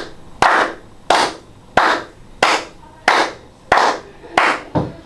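Hand claps in congratulation: about eight slow, even claps at roughly one and a half a second, each with a short echo.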